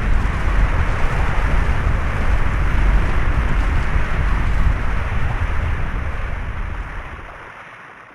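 Avalanche of snow and rock sliding down a mountainside: a dense, continuous low rumble with a hiss above it, fading away over the last two seconds.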